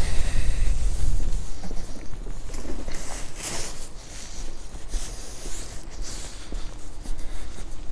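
Wind buffeting a phone microphone with a low rumble, heaviest in the first second or so, along with footsteps on paving stones.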